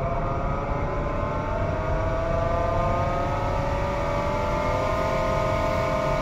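Subaru's air-conditioning blower motor running with a whine that rises slowly in pitch over the first few seconds and then holds steady, over a low rumble; it sounds like an airplane taking off. The noise could be debris caught in the fan or the blower motor going bad.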